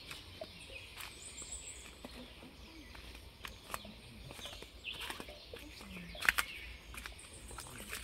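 Footsteps knocking on the wooden planks of a footbridge, with small birds chirping now and then; the loudest is a sharp knock about six seconds in.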